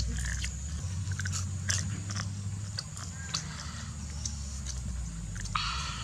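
Biting and chewing of crunchy food close to the microphone: scattered small crunches and clicks, over a steady low hum, with a brief rustle near the end.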